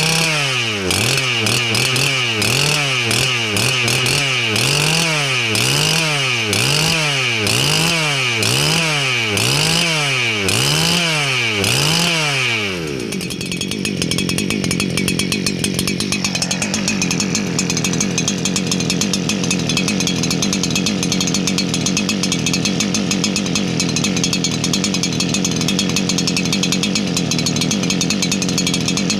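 Husqvarna 288 XP two-stroke chainsaw running loud. For the first dozen or so seconds its pitch rises and falls in an even cycle, a little faster than once a second. About 13 seconds in it changes to a steady high-pitched run.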